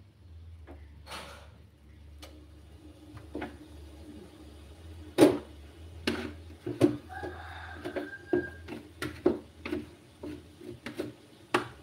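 Irregular clicks and knocks from a covered steamer pot on a gas stove as its metal lid is handled and set, over a low steady hum. The loudest knock comes about five seconds in, and a short faint tone is heard in the middle.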